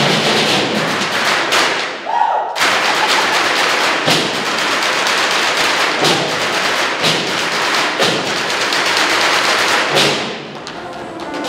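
Percussion ensemble drumming on metal rubbish bins and drums, a dense clattering rhythm with strong accents about once a second. The playing drops to a quieter level just after ten seconds in.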